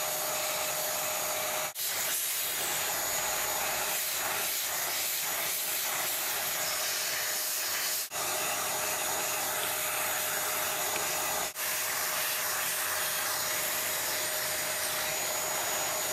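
Vacuum cleaner running steadily, a rush of air with a steady whine, as its brush nozzle sucks dust off a circuit board and the inside of a plastic case. The sound drops out very briefly three times.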